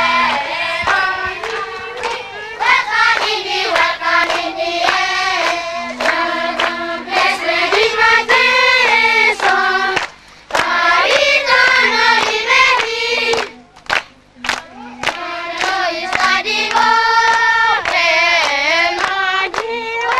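A group of voices singing a chant together, in phrases of rising and falling pitch, broken briefly about ten seconds in and again near fourteen seconds. Sharp claps or knocks are scattered through the singing.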